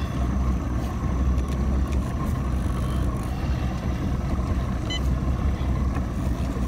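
Boat motor running steadily at low speed, a constant low drone with water and wind hiss over it. A short high beep sounds once about five seconds in.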